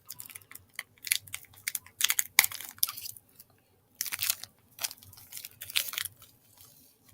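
Close-up chewing of a sugar-coated gummy candy, Maynard's Fuzzy Peaches, heard as irregular wet crunches and mouth clicks with a short pause about halfway through.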